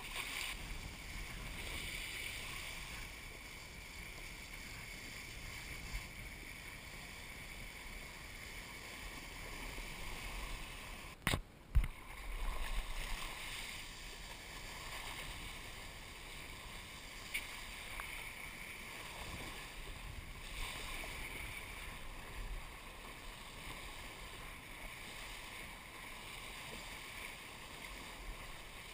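Kiteboard planing across the water: a steady rush of water and spray under the board, with wind on the camera. A sharp click about eleven seconds in, followed by a brief thump.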